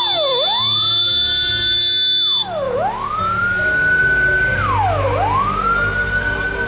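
Siren of a Soviet-era militsiya car wailing in repeating cycles, each a quick drop in pitch, a slower rise and a held high note, about every two and a half seconds. A steady high-pitched whine runs underneath and cuts off suddenly about two and a half seconds in.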